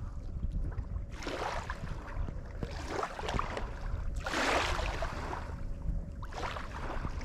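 Wind rumbling on the microphone beside open water, with three swells of rushing noise.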